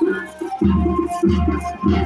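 Patriotic Hindi song playing, music with a heavy bass beat roughly three times every two seconds and a melody line over it.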